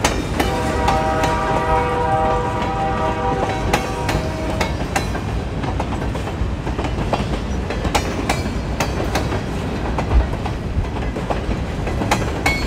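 A long train of covered hopper cars rolling past at close range: a steady heavy rumble with wheels clicking over the rail joints. A held high-pitched tone sounds over it for the first four seconds or so.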